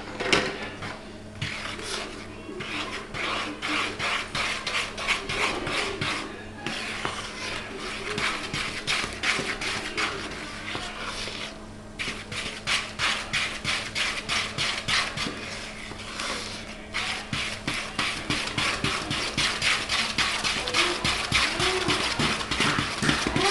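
Wooden spoon beating thick cake batter in a plastic mixing bowl: quick rhythmic scraping strokes against the bowl, several a second, stopping briefly three or four times before carrying on.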